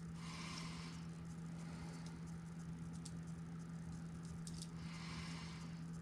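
Faint handling noises of a small shock spring being measured: soft rustling and a few light clicks, over a steady low electrical hum.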